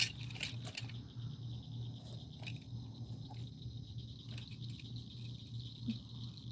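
Steady high trilling of night insects, with scattered clicks and rustles as a wriggling channel catfish is handled on a hanging fish scale; the sharpest click comes right at the start.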